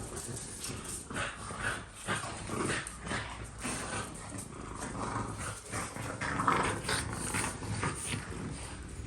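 Dog growling softly in short, irregular bouts during play.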